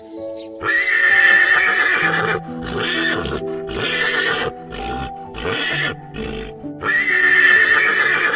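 A horse whinnying: one long whinny about half a second in, a few shorter calls after it, and another long whinny near the end, over background music.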